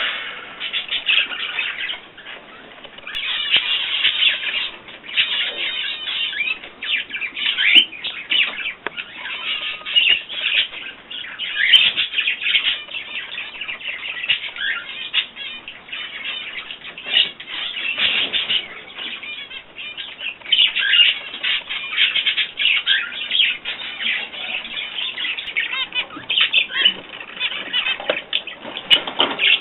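Pet birds chirping and chattering continuously, many short calls overlapping.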